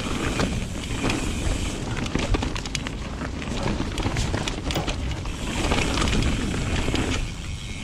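Mountain bike rolling down a dirt woodland singletrack: a steady low rumble of tyre and trail noise with a constant scatter of small rattles and clicks from the bike.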